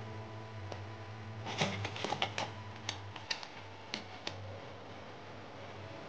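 Small cardboard box being opened by hand: a quick run of sharp crackles and clicks as the flap is pried up and folded back, dying away about halfway through, over a low steady hum.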